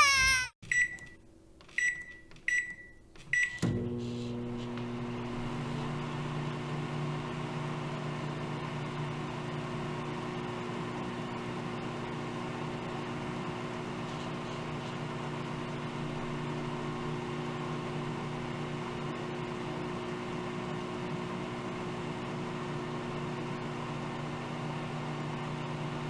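Microwave oven being started: four short keypad beeps, then the oven runs with a steady low hum.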